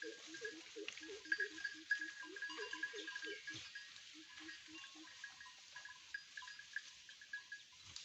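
Local goats bleating: one long wavering bleat of about three and a half seconds, then a shorter one about four seconds in.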